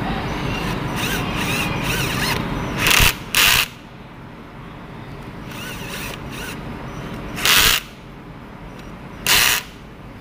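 Power drill with a screwdriver bit driving the terminal screws on miniature circuit breakers, in four short bursts: two close together about three seconds in, one past seven seconds and one past nine seconds.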